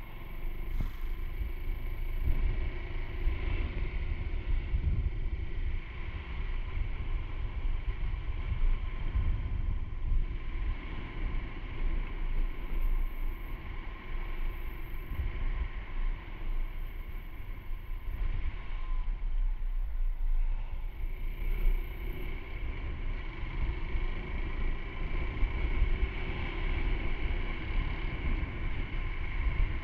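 Honda Super Cub C125's air-cooled 125 cc single-cylinder four-stroke engine and exhaust running steadily while riding, with heavy wind buffeting on the helmet-mounted camera's microphone.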